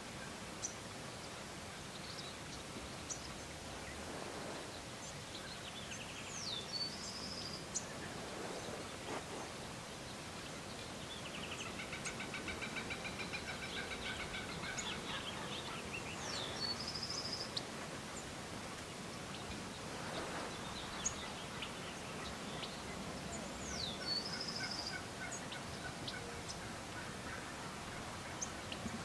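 Gould's wild turkey toms gobbling and calling faintly, with a rapid run of notes in the middle. A bird's short sweeping whistled phrase recurs a few times.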